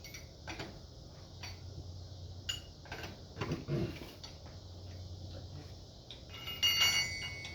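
Scattered light metallic clicks and taps of hand tools working the lug nuts on a car wheel, then a sharp metal clink that rings briefly near the end.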